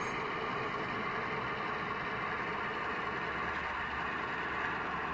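HO-scale model diesel locomotives' sound-decoder engine sound running steadily as the train moves on the layout.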